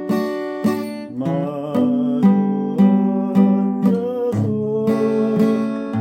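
Acoustic guitar strummed in a steady rhythm, about two strokes a second, with the chords changing every second or so, played by a learner about five months into the instrument.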